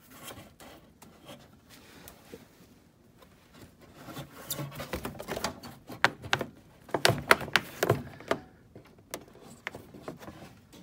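A run of sharp clicks and rattles from hands working the wiring behind a sheet-metal dash panel, pulling plastic wire connectors apart. The clicks come thickest and loudest in the middle seconds, with a few more near the end.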